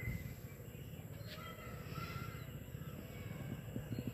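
Faint calls of distant birds over a low, steady background rumble, with a few soft taps near the end.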